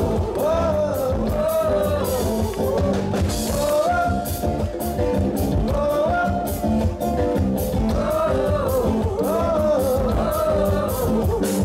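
Live band playing: voices singing over acoustic guitar, electric bass and drum kit, with cymbal crashes.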